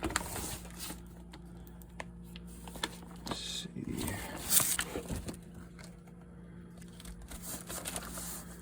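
Firework packaging being handled and opened: irregular crinkling, rustling and scraping with light knocks, busiest around the middle.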